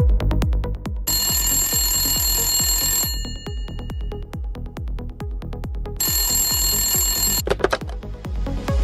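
Electronic dance music with a steady, fast beat. A bright, ringing layer comes in twice, about a second in and again near the end.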